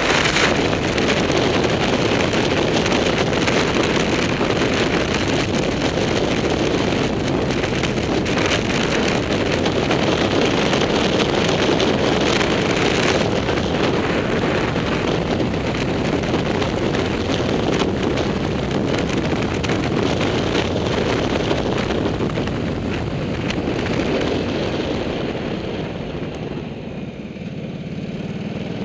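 Motorcycle riding at speed: heavy wind rush over the microphone mixed with the engine running under it. It gets quieter over the last few seconds as the bike slows into a hairpin.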